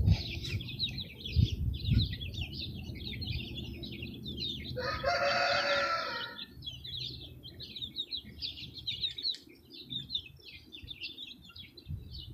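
A rooster crows once, about five seconds in, over continuous high twittering of small birds. A few dull thumps come in the first two seconds.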